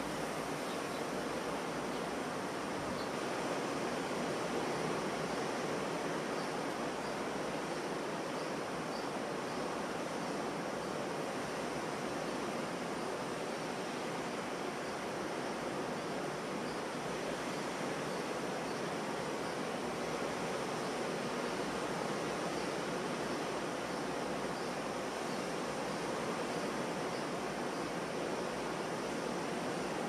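Ocean surf washing onto a beach: a steady, even roar of breaking waves with no single crash standing out.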